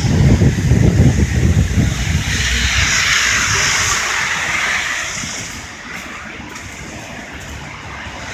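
Wind buffeting the microphone with heavy, uneven rumbling. Then a vehicle passes on the snowy street, its tyre hiss swelling and fading over about three seconds in the middle.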